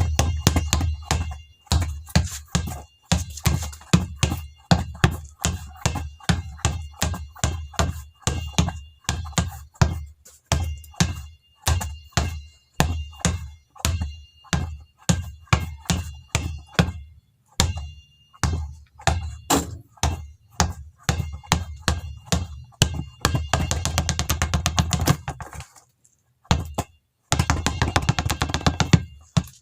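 Basketball dribbled on a hard floor: a steady run of bounces, about two to three a second, then two spells of much faster dribbling near the end.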